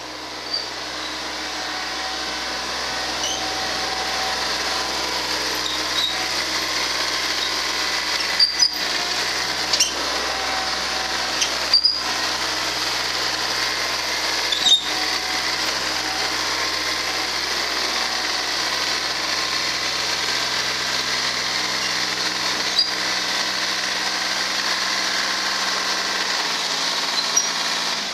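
Ford LGT14D garden tractor's three-cylinder diesel engine running steadily while the tractor moves, with a handful of sharp clicks in the middle. Its note shifts near the end.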